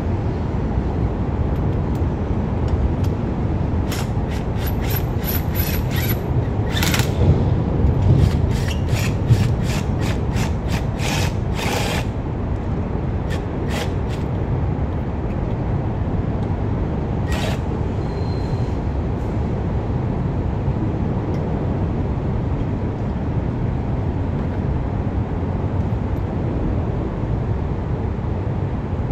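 Cordless impact wrench run in a string of short trigger bursts, a few held longer, spinning on and tightening a truck wheel's lug nuts; one last burst comes several seconds after the run. A steady low rumble lies under it throughout.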